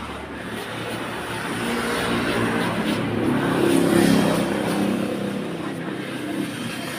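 Concrete floor grinding machinery running: a steady motor hum under a rushing mechanical noise, swelling louder towards the middle and easing back.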